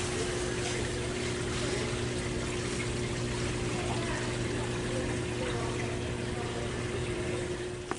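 Store aquarium tanks' filtration running: steady trickling water with a low, even pump hum.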